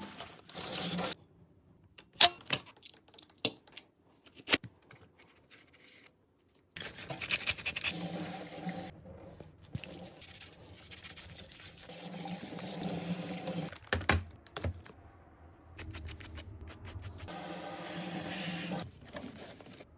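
Dyson cordless vacuum cleaner switching on and running in three short bursts of about two seconds each, with knocks and clicks between them.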